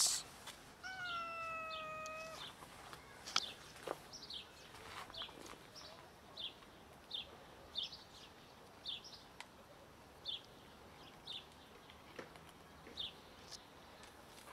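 A kitten meows once, a single high, slightly falling call lasting about a second and a half. It is followed by a small bird calling over and over with short, high, downward chirps, roughly one a second.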